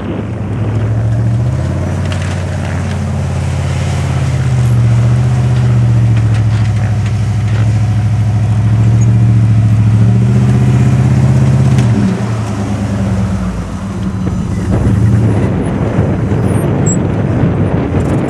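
Hummer H1 engine running under load as the truck drives off-road over dirt, its pitch holding and then shifting in steps for about twelve seconds. After that it turns rougher, with more tyre and dirt noise.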